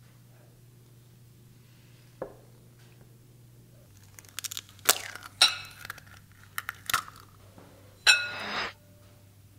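A stainless-steel wire egg separator clinking and tapping against glass bowls as eggs are cracked and separated: one small tap about two seconds in, then a cluster of sharp clinks and taps in the second half. The loudest is a ringing clink with a short rattle about eight seconds in.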